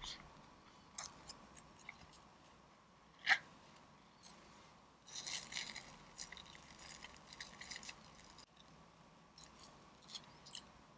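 Fork cutting into a slice of tiramisu cake on a crinkled paper plate: faint clicks and small scrapes of the fork against the plate, a sharper click about three seconds in, and a brief rustle of paper around five seconds in.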